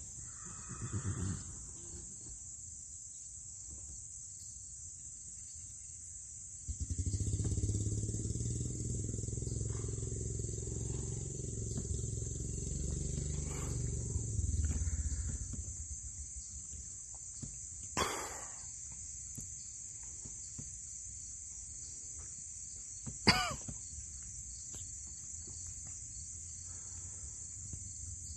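Crickets trill steadily at a high pitch. A low rumble starts abruptly about seven seconds in and fades out some nine seconds later. Near the end come two short, sharp sounds, the second the loudest.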